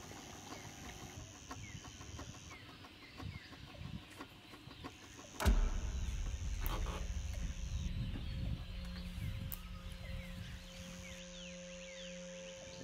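Outdoor ambience with faint bird chirps; about halfway through a sudden thump, followed by a low rumble of wind on the microphone and a steady low hum near the end.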